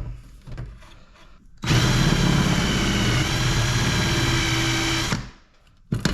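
Power drill with a large bit running steadily for about three and a half seconds, drilling out a rivet in an aluminum crutch. A few light knocks come before it and sharper knocks near the end.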